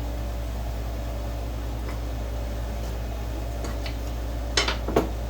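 Wooden beehive frame parts being handled, giving a few faint light clicks and then two louder sharp knocks near the end, over a steady low hum.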